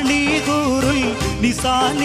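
A man singing an ornamented Malayalam film-style song melody live, backed by a band with keyboards and a drum kit.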